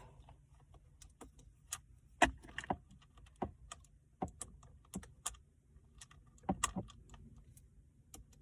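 Irregular clicks and taps of a Phillips-head screwdriver working at screws in plastic dashboard trim, with a sharp knock a little over two seconds in and a pair of knocks about six and a half seconds in.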